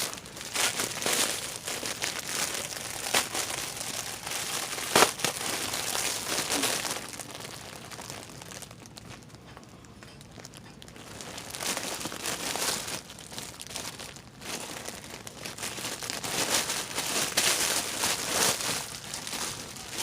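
Toy packaging crinkling and tearing as it is worked open by hand, with a few sharp snaps in the first five seconds and a quieter lull around the middle.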